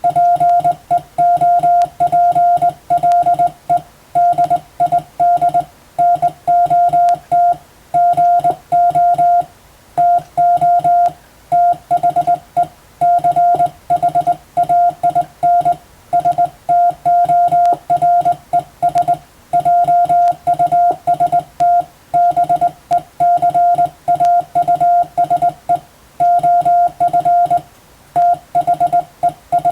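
Morse code as a keyed CW tone: one steady pitch switched on and off in dots and dashes, with short gaps between letters and longer ones between words.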